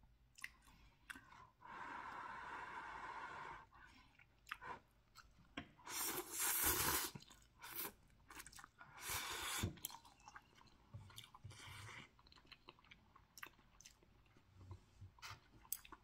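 Instant rice noodles being slurped and chewed: three long slurps, the loudest about six seconds in, with soft chewing and small mouth clicks between them.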